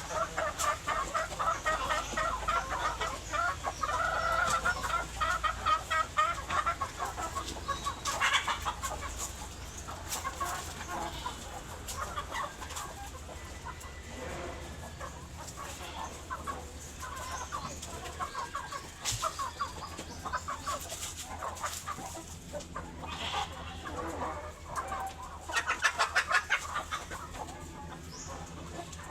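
A flock of chickens clucking, with many overlapping short calls. It is busiest early on, eases off through the middle, then has a brief loud flurry near the end.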